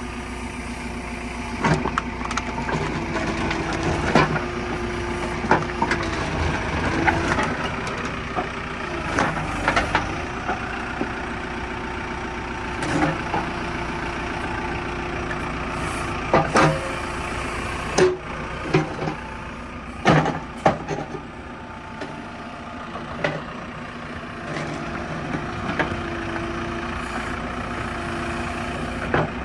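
Heavy vehicle engine running steadily, with repeated sharp metallic knocks and clanks over it.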